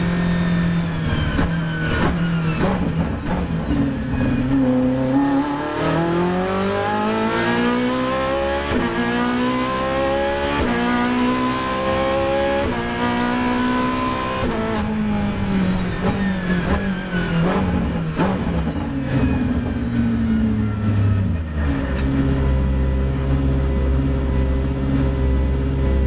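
Ferrari 458 GT3's V8 engine heard from inside the cabin, running hard. Its pitch falls over the first few seconds, climbs steadily for about ten seconds as the car accelerates, falls again as it slows, and settles to a low, steady, near-idle note for the last few seconds.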